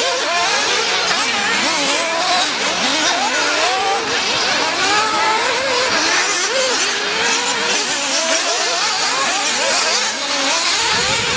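Several 1/8-scale nitro RC buggies' small two-stroke glow engines running on a dirt track, their high whines overlapping and constantly rising and falling in pitch as they rev up and back off. The sound cuts off suddenly at the very end.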